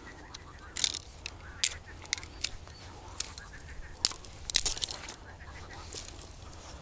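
Fishing gear being handled close by: a string of sharp clicks and rustles, busiest about four and a half seconds in. Birds call faintly in the background.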